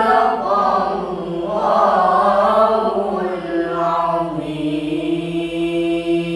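A child qari reciting the Quran in melodic tilawah style: a single voice ornaments a phrase with gliding pitch, then holds one long steady note from about four seconds in.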